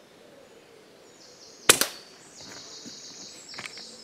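A single shot from a silenced .177 Daystate Mk IV air rifle: a sharp crack about a second and a half in, with a second hit a fraction of a second after it, the pellet striking the squirrel. Fainter clicks and high-pitched sounds follow.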